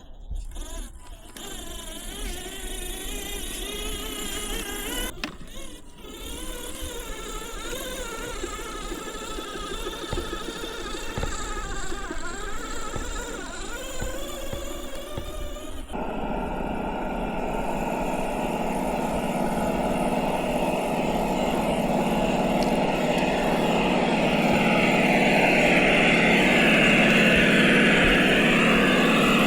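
Simulated engine sound from a GT Power sound module in an FMS FJ40 RC crawler. The pitch wavers up and down in the first half, then about halfway it changes abruptly to a steadier, fuller engine running that slowly grows louder.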